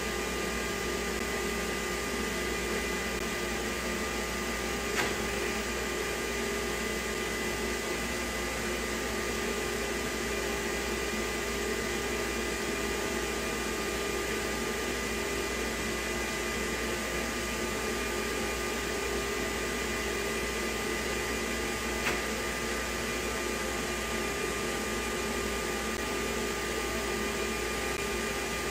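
CNC router spindle running steadily during a job: a steady whine over a rushing noise, with two brief clicks, about 5 seconds in and again near 22 seconds.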